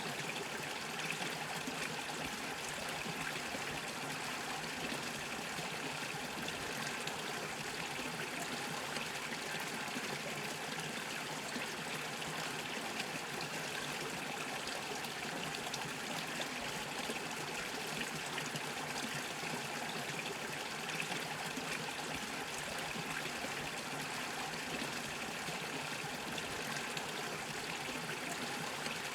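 Small stream bubbling and trickling steadily over stones.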